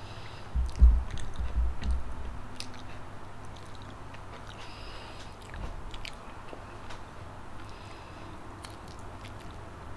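Close-miked chewing of a mouthful of rice and food eaten by hand, with heavy low thumps of the first bites in the first two seconds, then quieter wet mouth sounds and small clicks. Near the end comes a light crackle of a salted duck egg's shell being peeled.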